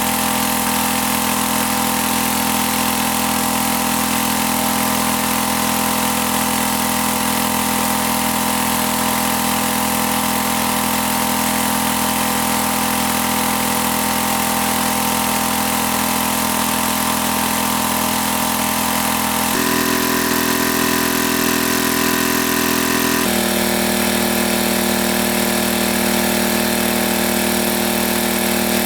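Small engine running steadily; its pitch changes abruptly twice, about twenty and twenty-three seconds in.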